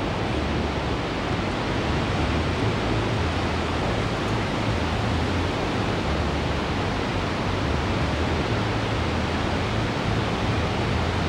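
Heavy ocean surf breaking and washing up the beach: a steady, even hiss with an uneven low rumble underneath.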